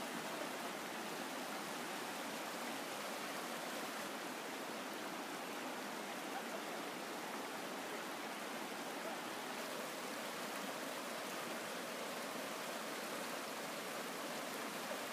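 Shallow, rocky hill river rushing steadily over stones and small riffles.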